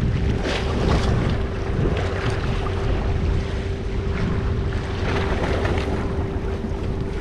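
Wind buffeting the microphone over the wash of sea water against a rock breakwater, with a steady low hum underneath.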